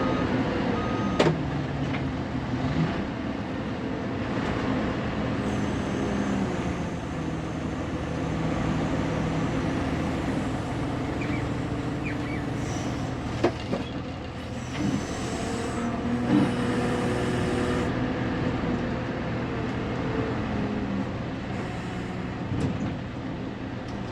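Diesel engine of a Fermec TLK760 backhoe loader running under load, its pitch shifting as the loader works. A couple of sharp metallic knocks come through, about a second in and about halfway.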